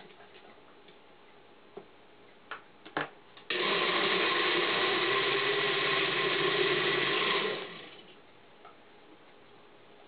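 Countertop blender running for about four seconds, blending thick squash pancake batter, then winding down as it is switched off. A few light knocks come just before it starts.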